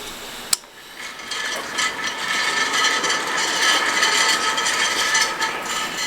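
A sharp click, then a dense mechanical ratcheting sound that builds about a second in and runs on for several seconds, high and rattly with steady ringing tones in it.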